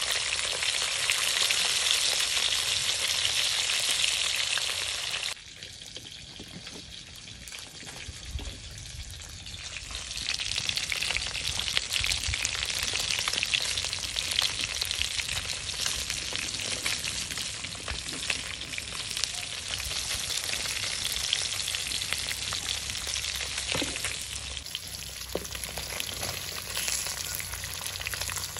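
Fish steaks frying in hot oil in a metal kadai, a steady sizzle. The sizzle drops off suddenly about five seconds in and builds back up a few seconds later, with a few light clicks.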